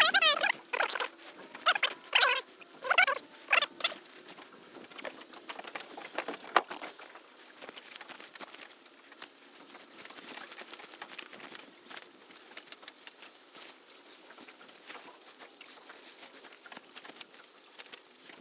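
Many light clicks and scratches as live edible crabs are picked out of a nylon gill net on wooden dock planks: shells and legs clicking and the mesh rustling. Several loud, wavering pitched cries sound over it in the first four seconds.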